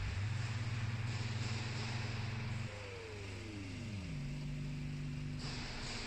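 Round vibrating screen running while it sifts metal powder: a steady low machine hum with hiss over it. A tone sweeps down in pitch once, about three seconds in, then the hum settles again.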